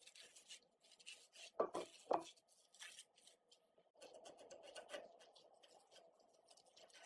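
Workbench handling noises: light clicks and taps of parts being handled, with two louder knocks just under two seconds in, then a rough scraping rub from about four seconds.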